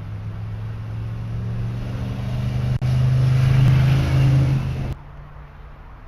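A motor vehicle's engine running and building up as it accelerates, its hum growing louder and rising a little in pitch, then cutting off suddenly about five seconds in.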